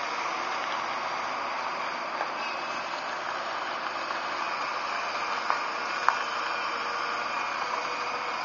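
New Holland E215 crawler excavator's diesel engine and hydraulics working steadily as it digs into earth and lifts a full bucket, with two short sharp knocks about five and six seconds in.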